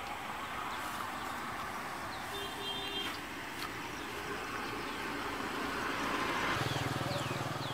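A motor vehicle engine running, with a low steady hum that comes in and grows louder about six and a half seconds in; a short beep sounds about two and a half seconds in.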